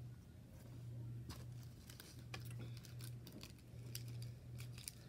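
Soft slime being squeezed and worked by hand, giving faint scattered clicks and crackles over a steady low hum.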